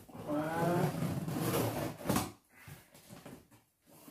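Scissors slitting the packing tape on a cardboard box: a scraping rip lasting about a second and a half, then a short sharp crackle about two seconds in, followed by faint taps of cardboard being handled.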